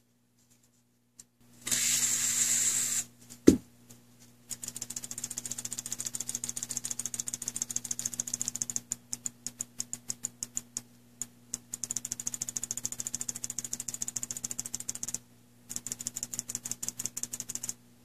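A short hiss of aerosol electrical contact cleaner, a sharp click, then a seat-belt buckle switch's plunger pressed over and over: rapid clicking at several clicks a second, with a brief pause near the end, working the cleaner into the switch contacts.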